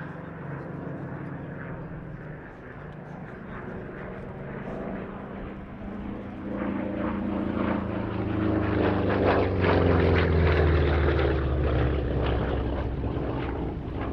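Republic P-47 Thunderbolt's Pratt & Whitney R-2800 eighteen-cylinder radial engine on a display pass. The engine note grows louder to a peak about two-thirds of the way through, then drops in pitch as the aircraft goes by.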